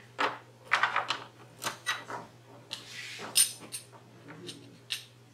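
Small plastic kit parts clicking and knocking against a hard plastic storage case as they are handled, a quick series of light knocks with a short scrape about three seconds in.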